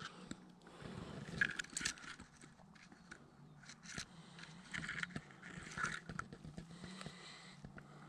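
Bilberry shrubs' leaves and twigs rustling and scraping as they brush against the camera moving through them, with scattered small clicks.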